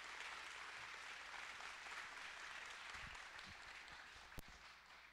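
Faint audience applause, an even patter of many hands clapping that fades away near the end, with one sharp click about four seconds in.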